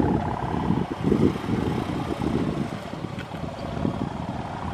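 CC 201 diesel-electric locomotive approaching slowly, its engine running, with wind gusting on the microphone.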